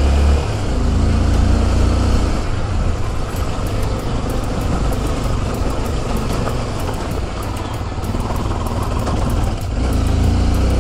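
Light motorcycle engine running while riding, with wind rumbling on the microphone; it swells near the start and again near the end.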